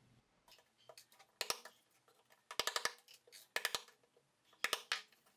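Wooden mallet tapping a wood-handled chisel to cut through the small tabs holding the carved parts in thin plywood: sharp knocks, in small groups about once a second.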